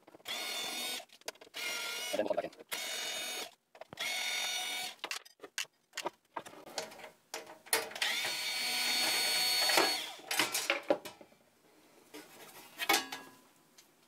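Cordless drill-driver backing out the cover screws of a stereo receiver: several short bursts of motor whine in the first few seconds, then a longer run about eight seconds in. Light clicks and rattles of the screws and the metal cover fall between the runs.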